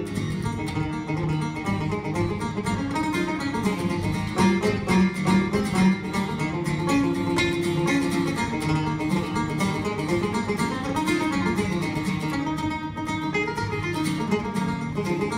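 A banjo and an acoustic guitar play an Irish traditional tune together: the banjo picks a quick run of melody notes over steady guitar accompaniment.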